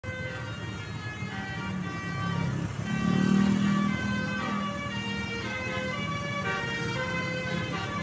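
Multi-tone 'telolet' bus horn (basuri) playing a melody of held notes that step in pitch every half second to a second, over the low hum of passing road traffic that grows louder about three seconds in.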